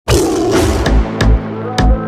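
Electronic background music with a heavy bass beat, opening with a loud swell.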